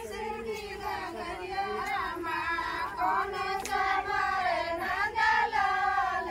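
A group of women singing a Hindi folk song together, high voices holding long, wavering notes.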